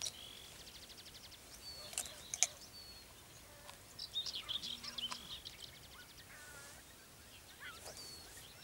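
Several wild birds singing and calling: a rapid high trill at the start, then scattered chirps and short whistles over a steady background hiss.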